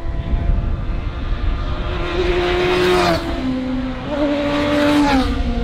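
Classic superbike racing motorcycle approaching at speed under hard acceleration and passing close by. The engine note climbs, steps down sharply about three seconds in, climbs again, and drops once more near the end, where it is loudest.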